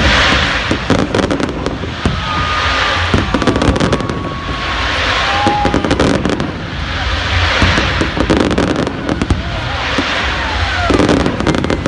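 Aerial fireworks display: a dense run of bangs and crackling over a low rumble, the crackle swelling about every two to three seconds, with a few thin whistles.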